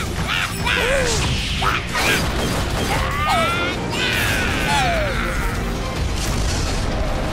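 Cartoon robot-battle sound effects over background music: mechanical clanks and impacts, with several sweeping tones that glide up and down near the middle.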